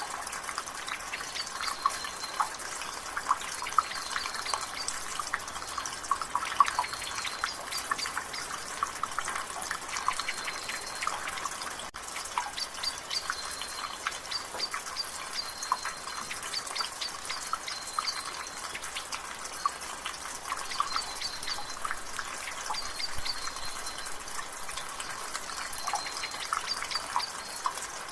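Water dripping and splashing steadily from a rain gutter, with light rain and dense, irregular drips. Short high bird calls repeat every few seconds.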